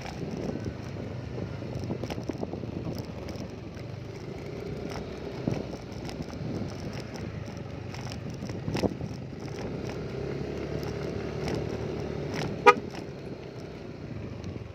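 An engine running steadily with a low drone, with scattered knocks and one short, sharp, loud sound near the end.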